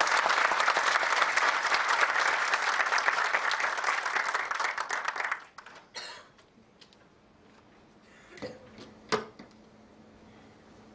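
Audience applauding, the clapping dying away about five and a half seconds in. Then a few short knocks, the sharpest about nine seconds in.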